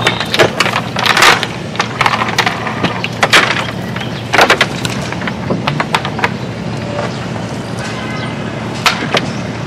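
A boat's motor running steadily under a series of irregular sharp knocks and rattles, several coming in quick clusters.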